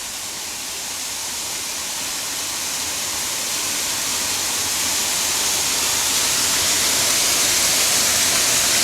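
Small waterfall pouring down between boulders: a steady rush of falling water that grows gradually louder.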